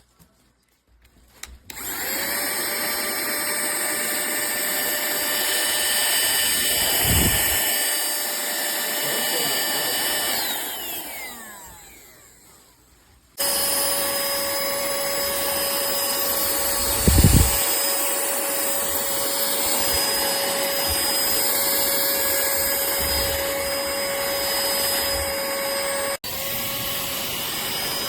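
A JIEFNGD cordless handheld vacuum cleaner's motor switching on after a few clicks and running with a steady whine, then switched off and spinning down with a falling whine. It starts again abruptly and runs steadily, with a couple of low thumps.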